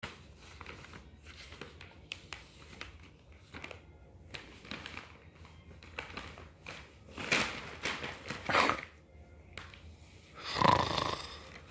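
Newspaper rustling and crinkling as a baby grabs and pulls at the pages, in irregular bursts that get louder, the loudest near the end.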